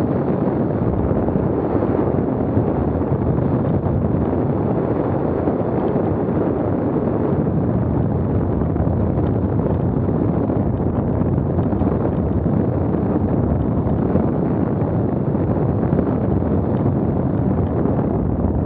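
Steady wind rushing over the microphone, a loud unbroken rumble.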